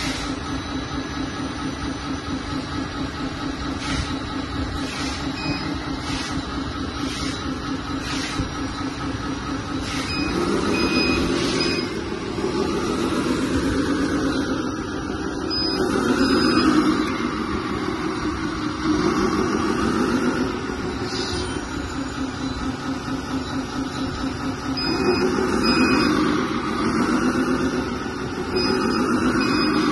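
1/14-scale RC hydraulic wheel loader running: a steady electric hydraulic-pump buzz. From about ten seconds in it rises and falls in several louder waves as the hydraulics work under load, with a few short high beeps.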